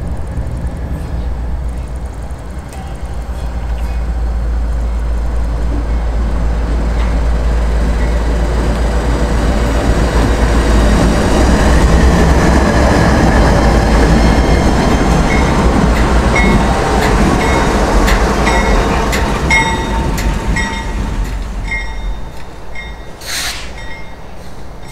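CSX diesel-electric freight locomotives approaching and passing close by at a grade crossing: engine rumble and wheels running on the rails build to their loudest about halfway through. An evenly repeating ding, typical of the crossing's warning bell, sounds through the second half as the train noise fades.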